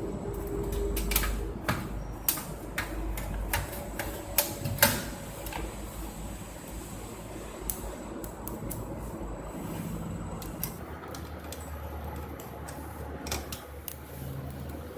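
Irregular clicks and light knocks of hardware being handled while a hard drive is fitted into a DVR, thickest in the first few seconds, over a steady low hum.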